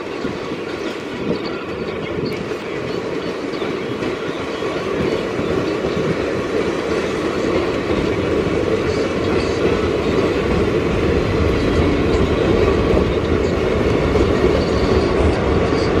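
Indian Railways passenger coaches rolling past at low speed as the train departs, wheels clattering over the rail joints in a steady rumble that slowly grows louder.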